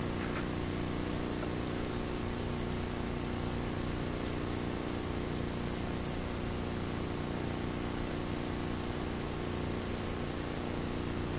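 Steady low electrical hum with an even hiss behind it, unchanging throughout: the background noise of an old video recording.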